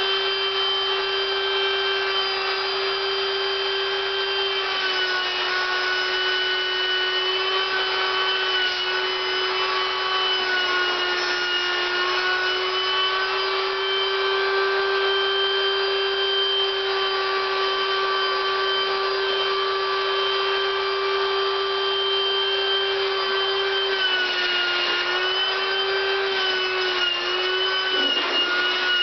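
Electric air pump or blower running steadily with a whine, inflating a latex inflatable suit. Its pitch dips slightly a few times, most clearly near the end.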